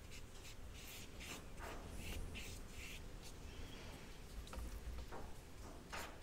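Faint, soft brushing and scratching of a paintbrush, worked in the pans of a watercolor set and then stroked across watercolor paper, in short strokes.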